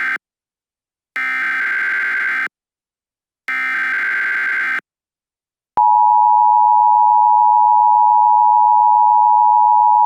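Emergency Alert System tones: the SAME header data bursts, each about a second long and a second apart (the first ending as the sound begins, then two more), followed about six seconds in by the steady two-tone EAS Attention Signal, held. Together they mark the start of an EAS alert broadcast.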